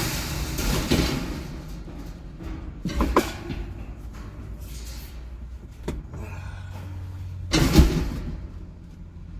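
Several scattered knocks and clunks, the loudest near the end, over a steady low rumble.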